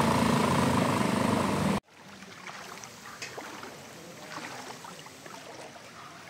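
A loud small-vehicle engine runs with churning water as it moves through floodwater, cut off abruptly about two seconds in. What follows is much quieter: light rain pattering and scattered soft drips on standing floodwater.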